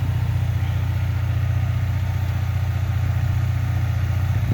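2015–2017 S550 Ford Mustang's engine idling steadily at a low pitch, the car running in place with the e-brake set.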